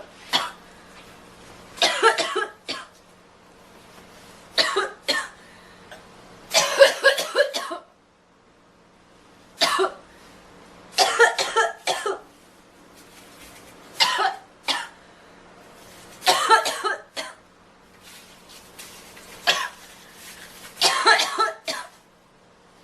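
A girl coughing over and over: short groups of several coughs in quick succession, coming every two to three seconds.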